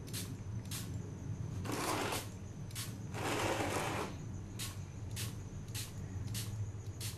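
Small siphon-feed spray gun with a glass jar spraying in two hissing bursts: a short one about two seconds in, then a longer one from about three to four seconds. A steady low hum and regular ticks, a little under twice a second, run beneath.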